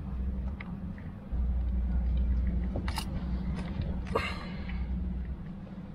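Small plastic clicks and rustling from handling a Jeep Wrangler JL's dash trim panel and wiring connectors, with a sharper click about three seconds in and a brief scrape soon after. A steady low hum runs underneath.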